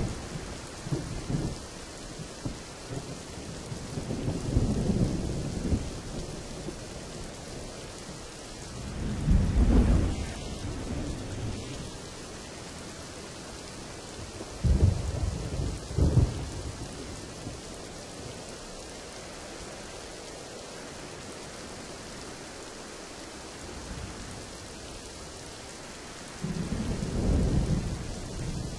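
Steady rain with thunder rolling over it: low rumbles swell a few seconds in and again around nine seconds, two sharper claps come close together near the middle, and another rumble rolls near the end.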